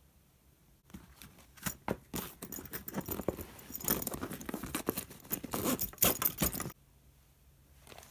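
Zip of a fabric floorball bag being pulled open and the bag's contents handled: rustling cloth with a run of small metallic clicks and jingles from the zipper pulls. It stops abruptly near the end.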